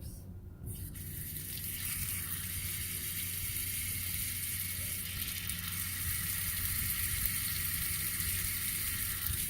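Water tap turned on, water rushing out in a steady hiss that starts about half a second in: the house supply flowing again after the main shut-off valve was replaced.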